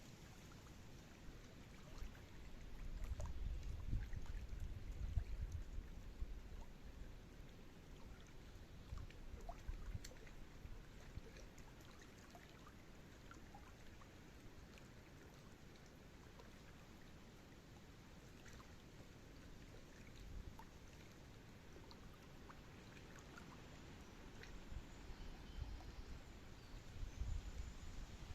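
Quiet forest ambience with a faint trickle of running water, and low rumbling bursts a couple of seconds in and again near the end.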